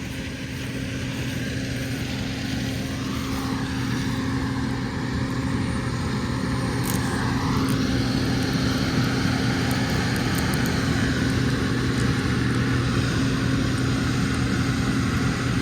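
A vehicle engine running steadily with an even low hum, growing a little louder over the first several seconds.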